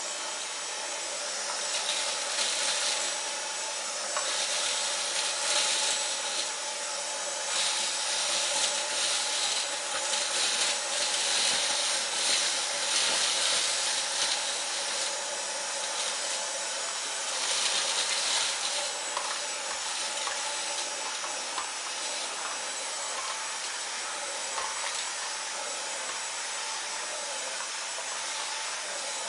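Dyson Cyclone V10 Animal cordless vacuum running steadily on its lowest power setting, a rushing hiss with a thin high whine, as it sucks up cornflakes.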